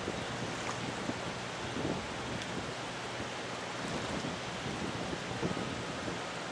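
Steady wind noise on the camcorder microphone, with a faint low hum underneath.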